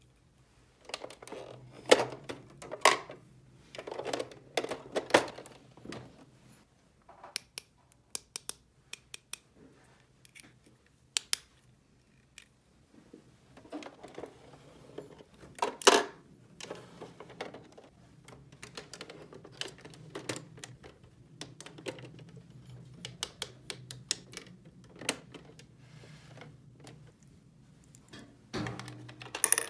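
Small hard toy pieces being handled: irregular clicks, taps and light rattling as parts are picked up, set down and fitted together, with the sharpest click about halfway through.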